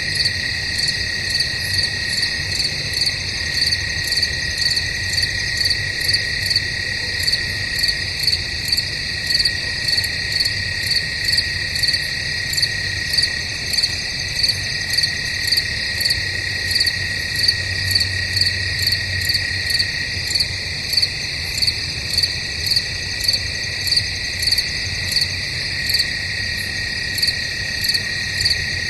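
A chorus of night crickets: a continuous high trill under regular chirps, about one and a half a second, that keep a steady rhythm throughout.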